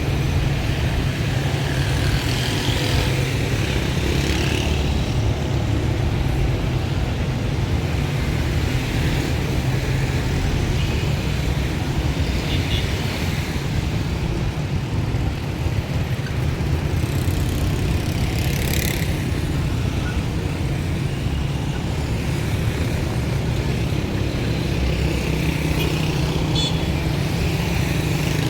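Busy city street ambience dominated by a steady rumble of motor traffic.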